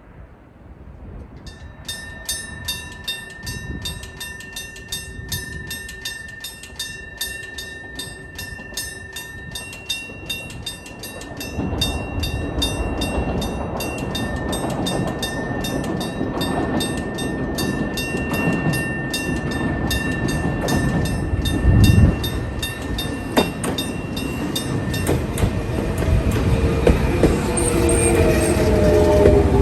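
An old electric-bell level-crossing alarm (a 1966 Sankōsha bell) ringing in a rapid, even rhythm from about a second and a half in, while a Jōmō Electric Railway 700-series train approaches and runs past with a rising rumble and a loud thump. The bell stops a few seconds before the end, as a falling whine comes from the passing train.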